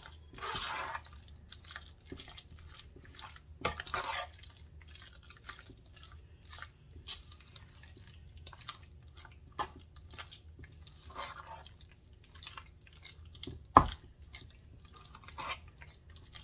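Spoon stirring a thick, wet mix of shredded chicken, cream cheese, ranch dressing and hot sauce in a stainless steel mixing bowl: irregular wet squelches and clicks of the spoon against the metal, with one louder knock near the end.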